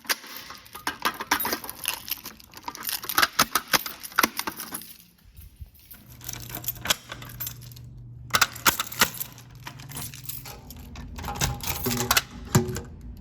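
Rapid metallic jangling and clicking in several bursts, like keys being handled, with a low steady hum for a few seconds in the middle.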